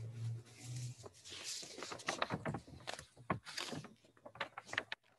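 A brief low hum in the first second, then rustling with a quick run of soft clicks and scratches that thins out toward the end, like handling or clothing noise near the microphone.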